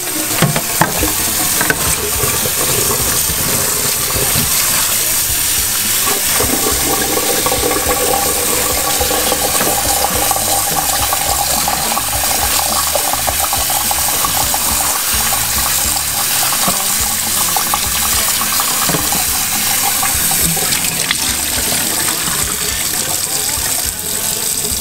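Kitchen tap running steadily into a bowl in a stainless-steel sink, with hands swishing and rubbing chopped cabbage leaves under the stream.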